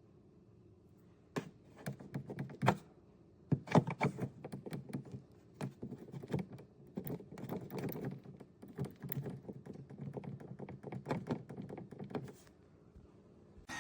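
A run of irregular light knocks and clicks, starting about a second in and stopping shortly before the end.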